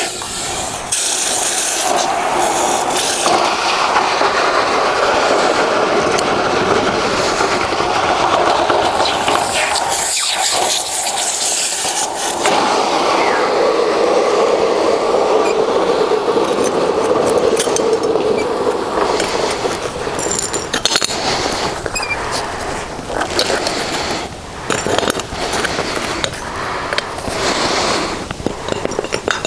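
Metal-melting foundry furnace burner running with a steady rushing noise, easing off somewhat in the second half, while metal tools scrape and knock now and then.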